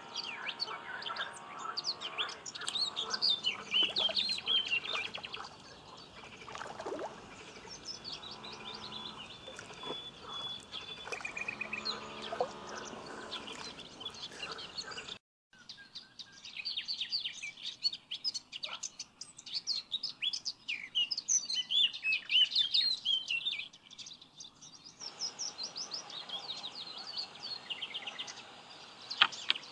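Songbirds chirping and singing, several overlapping calls and trills, with the sound dropping out for a moment about halfway through.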